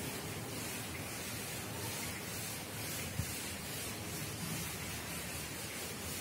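Soft, steady rubbing of a chalkboard duster wiping chalk off a blackboard, heard over steady hiss, with a faint knock about three seconds in.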